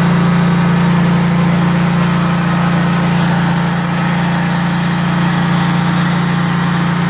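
Portable band sawmill's engine running at a steady speed, a constant low hum.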